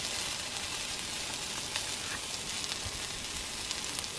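Food sizzling and frying in a hot pan: a steady hiss with faint crackles.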